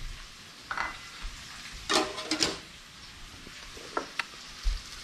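Sausages sizzling in hot fat in a pan as they are lifted out with metal tongs, a steady hiss with a few brief clinks and knocks of the tongs against the pan.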